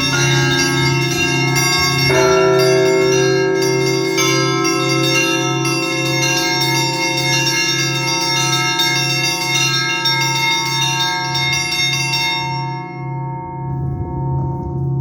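Russian Orthodox church bells rung by hand for a festive liturgy: a low bell struck at an even pace of about three strokes every two seconds under a peal of smaller ringing bells. The higher bells die away about twelve seconds in while the low bell keeps striking.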